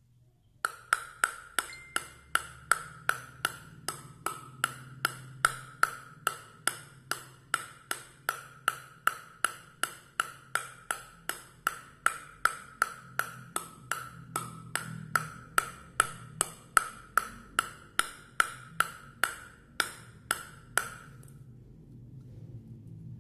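A table tennis ball bounced over and over on the bare wooden face of a Butterfly Viscaria Arylate-Carbon blade. It makes a steady run of sharp, ringing pings, about two and a half a second, then stops a couple of seconds before the end. This is a bounce test of how stiff the blade's plies are.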